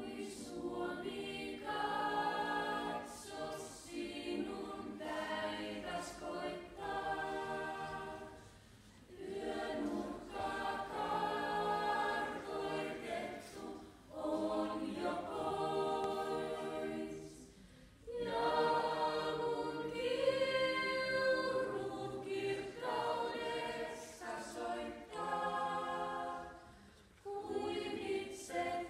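A small group of young voices singing a Finnish song together, unaccompanied, in phrases separated by short pauses for breath.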